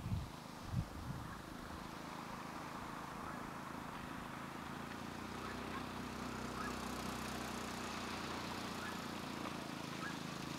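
Stels ATV 300 quad bike's engine heard from a distance as it approaches: a steady drone that slowly grows louder, its engine note coming through more clearly from about halfway. Two low thumps near the start.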